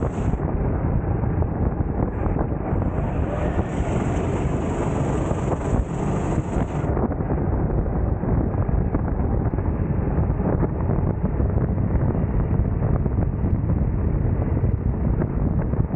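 Racing kart at speed: its engine running under load, heavily masked by wind buffeting on the onboard microphone, a steady loud rumble.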